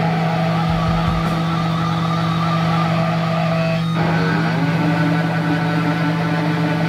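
Sustained electric guitar feedback over a loud, steady amplifier hum, with no drums. The held tones change about four seconds in.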